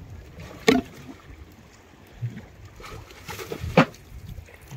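Two sharp knocks about three seconds apart on a small fishing boat, the second the louder, with faint water sloshing in between.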